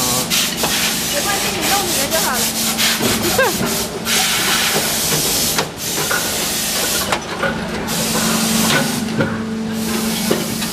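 Plastic injection moulding machines running on a factory floor: a steady hum under long stretches of loud hissing. A quick run of sharp clattering clicks comes in the first two seconds, while the machine's sliding safety gate is being worked.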